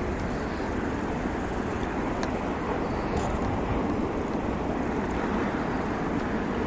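A steady, low rumbling roar of noise with no distinct events.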